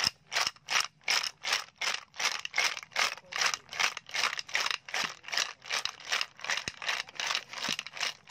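Raw snails in their shells rattling against a ceramic bowl, with chili, okra and mushrooms, as the bowl is shaken in both hands to toss them with the seasonings. It goes as a steady rhythm of about three shakes a second.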